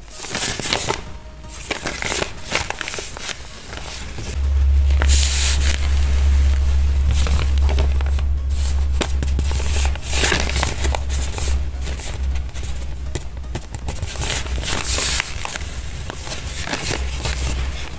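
Crinkling and crackling of tape-covered paper squishies and paper blind bags being squeezed and handled, in many quick irregular crackles. A steady low hum runs underneath from about four seconds in.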